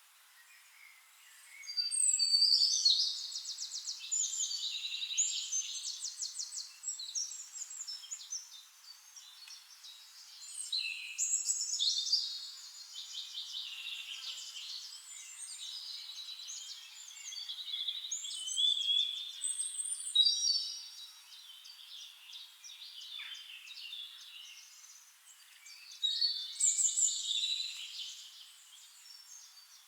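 Songbirds singing in a forest: four loud bouts of high, rapid trilling song, about two seconds in, near eleven seconds, near nineteen seconds and near the end, with quieter chirps between.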